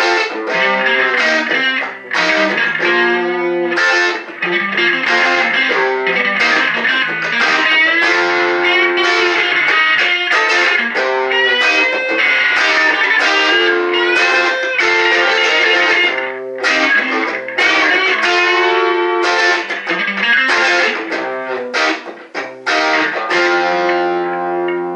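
Electric guitar playing sustained chords and single notes, some of them bent in pitch, with a short break about two-thirds of the way through.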